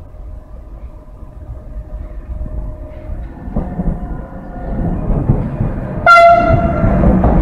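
Class 486 electric locomotive approaching and running past: a rumble builds with several steady humming tones over it. About six seconds in it gives one short, loud blast on its horn.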